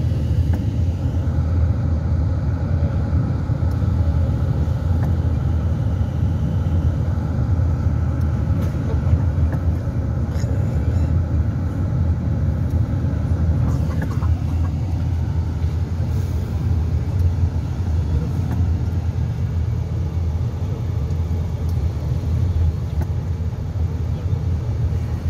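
Steady low engine and road rumble, heard from inside the cabin of a moving vehicle.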